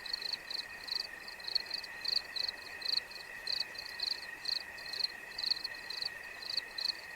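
Night-time insects, cricket-like, chirping in short high pulses about three times a second over a steady high-pitched trill.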